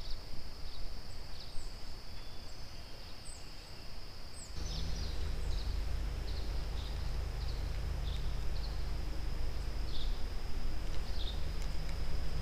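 Steady high-pitched insect buzz with short chirps over it. From about four and a half seconds in, a low rumble joins it.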